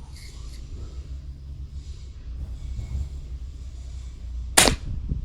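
A single sharp shot from a .177 break-barrel air pistol firing a dart, about four and a half seconds in, over a faint low hum.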